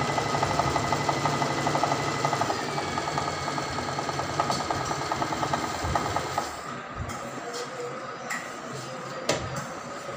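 Usha Janome Allure DLX sewing machine stitching fast for free-motion embroidery: a rapid, even needle rhythm over a steady motor whine. About six and a half seconds in it goes quieter, and a sharp click comes near the end.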